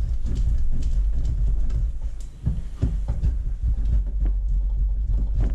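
A bar rubbed in short scraping strokes on a small metal hand grater over a stainless steel bowl, about two strokes a second and uneven, over a steady low rumble.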